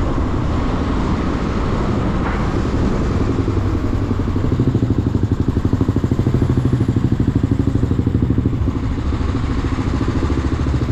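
Motorcycle engine running at low speed, heard from on the bike. From about four seconds in, its exhaust beat becomes an even, rapid pulsing.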